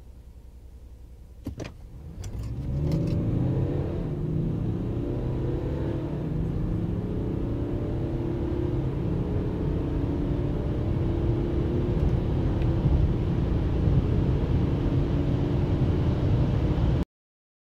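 BMW turbodiesel car accelerating hard from a standstill, the engine note climbing and dropping back at each upshift. A few clicks about one and a half seconds in, and the sound cuts off abruptly near the end.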